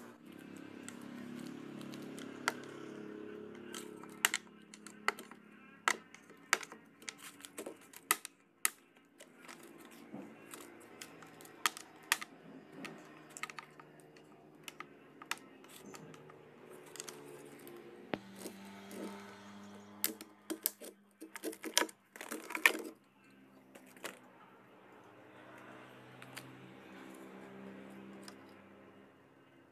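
Hand tools clicking and tapping irregularly against a car radiator's metal frame and core as it is taken apart, with a quick cluster of sharp clicks about twenty seconds in, over a low steady hum.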